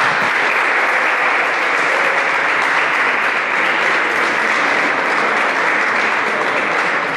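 Audience applauding: many hands clapping steadily, easing off near the end.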